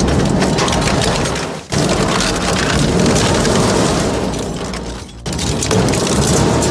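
Loud, dense crunching and crackling of an industrial shredder tearing up material, in short clips cut together, with two brief breaks.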